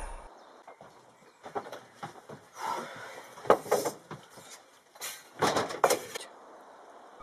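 A door's lever handle turned and the door opened, giving a few sharp clicks and knocks. The loudest comes about three and a half seconds in, with two more just before six seconds.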